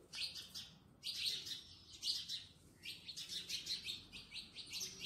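Small birds chirping in quick runs of high, repeated notes, several runs with short pauses between them.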